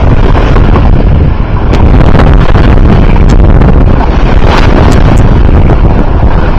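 Strong wind buffeting the microphone on a sailboat, a loud, steady rumbling rush with a few brief crackles about four and a half to five seconds in.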